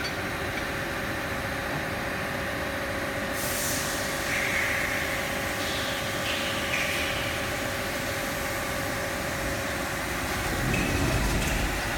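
CNC tool grinding machine running: a steady mechanical hum with a constant held tone. A hiss comes in about three and a half seconds in and continues, and a low rumble swells near the end.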